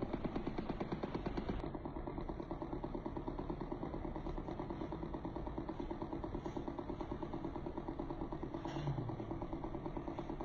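Handheld percussion massage gun running, its head pulsing against a cat's backside: a steady, rapid, even pulsing.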